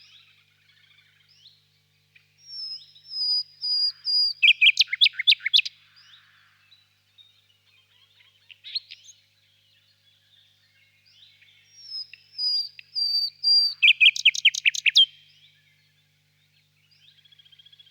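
Nightingale singing: two loud song phrases, each a run of high whistled notes ending in a fast rattling trill, with fainter chirps between them.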